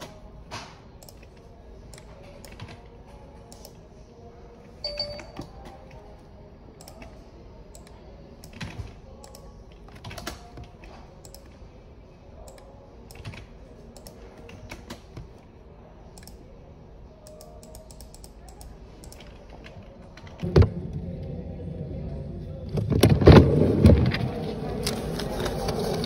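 Computer keyboard typing and mouse clicks in irregular, scattered taps. About twenty seconds in, a thump is followed by louder background noise and a bout of handling sounds.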